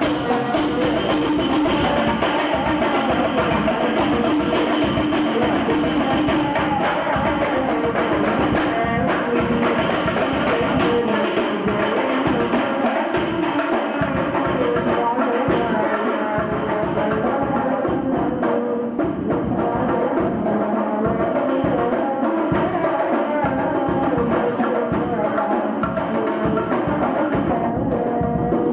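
Hadroh ensemble of hand-struck frame drums (rebana) playing a dense, steady rhythm under sholawat singing.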